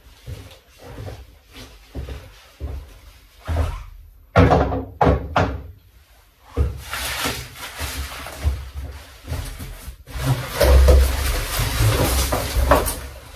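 Cardboard packaging being handled: scattered knocks and thuds at first, then from about halfway a steady rustling and scraping as large cardboard sheets are lifted and shifted, with low thumps, loudest near the end.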